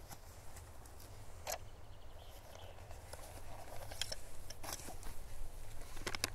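A few short, irregular scrapes and clicks of hand work with a knife and gear, with a cluster of them near the end.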